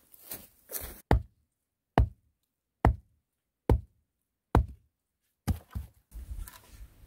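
Six evenly spaced, heavy knocks a little under a second apart: a sharpened wooden stake being hammered into the ground.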